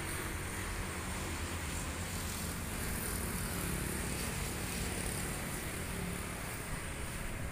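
LOVOL FR220D excavator's diesel engine idling steadily, a low even hum with some wind on the microphone.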